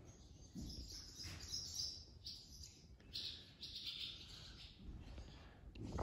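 Birds nesting in the open house frame, chirping faintly on and off in short high calls.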